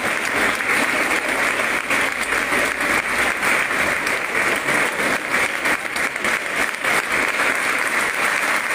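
Audience applauding, a steady dense patter of many hands clapping without a break.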